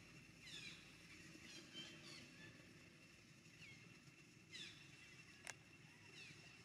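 Faint, high chirping animal calls, each falling in pitch, repeated about half a dozen times at uneven intervals, with one sharp click about five and a half seconds in.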